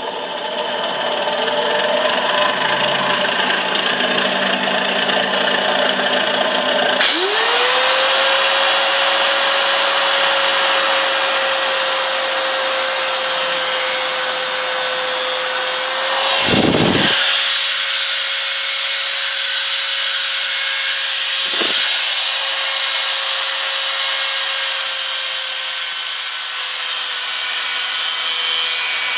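A mini metal lathe spins up and runs. About seven seconds in, an angle grinder with a cutoff wheel starts with a rising whine that then holds steady, grinding into the spinning titanium rod to part it off.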